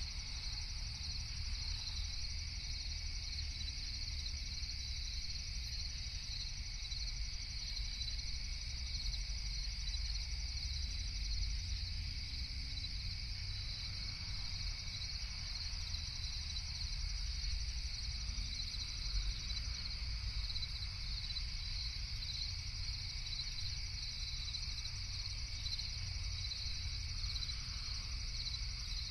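A dense night chorus of crickets chirping steadily, with a low, steady rumble underneath.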